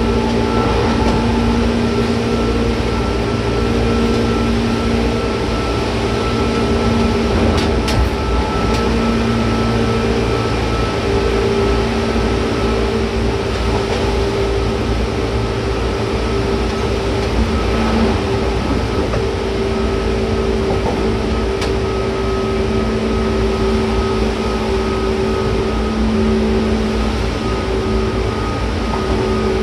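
JR 201 series electric commuter train running, heard from inside a passenger car: a steady rumble of wheels on rail with a steady hum of several tones over it. A couple of sharp clicks come about eight seconds in.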